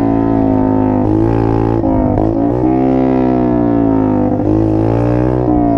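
Mini dirt bike's engine running under way, its pitch sagging and climbing with the throttle, with several sudden jumps in pitch.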